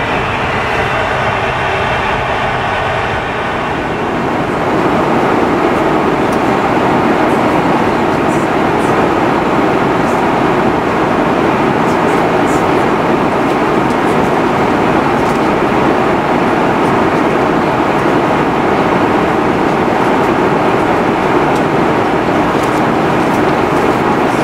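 Steady cabin noise of an Airbus A340-600 in flight: an even, loud rush of airflow and engine noise, which rises a step about four seconds in and then holds.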